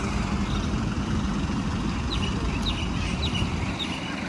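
Steady low engine rumble from nearby buses. From about halfway through, a bird gives about five short, falling chirps.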